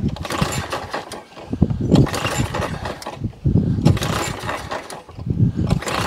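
Briggs & Stratton 190cc flathead engine on a Masport lawn mower being pull-started by hand. There are four pulls on the recoil starter, about one every second and a half. The engine cranks but never catches, even with carburettor spray down its intake, because the ignition coil is giving no spark.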